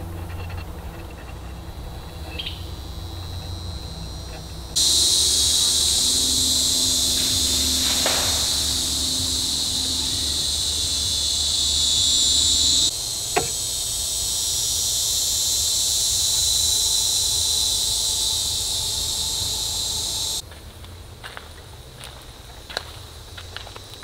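Loud, steady, high-pitched insect chorus that cuts in abruptly about five seconds in and stops just as abruptly near the end. Within it there is a crack about eight seconds in and a single sharp bang about thirteen seconds in. The last few seconds hold light ticks and rustles of footsteps approaching through brush.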